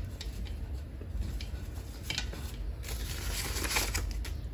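Paper banknotes rustling and flicking as a small stack of bills is counted by hand.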